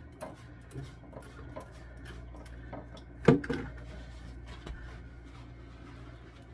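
Pump-action spray bottle squirting cleaner in a few short hisses, then handling as the shelf is covered with paper towel, with one sharp louder knock about three seconds in. A low steady hum runs underneath.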